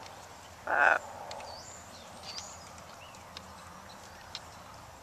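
A macaw gives one short, loud squawk about a second in, with faint chirps of small birds after it.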